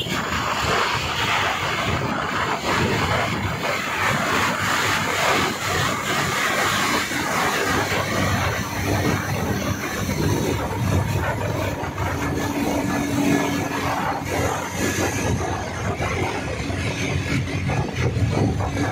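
Steady road, wind and engine noise of a vehicle driving along a city road, heard from on board.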